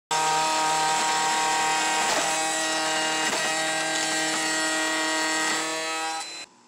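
Triton 3-1/4 HP router spinning at speed in a router table, a loud steady whine with a few sharp ticks as a board is fed past the bit along the fence. It cuts off suddenly near the end.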